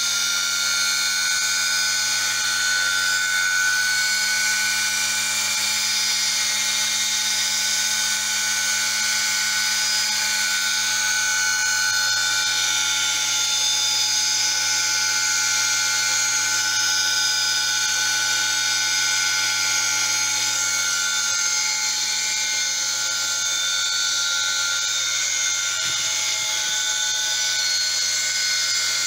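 Homemade belt-driven wood spindle running at about 6000 rpm, driven by a 1,400 rpm single-phase motor through a 10-inch pulley. It makes a steady, high-pitched whine over a low motor hum, with no change in speed, and it is being shown running smoothly after the pulley was seated true to cure its vibration.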